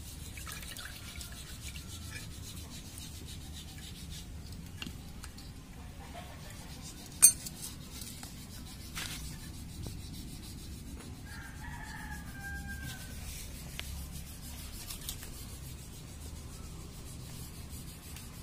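Chickens calling, with a rooster crowing about twelve seconds in, over steady scraping. A single sharp click about seven seconds in is the loudest sound.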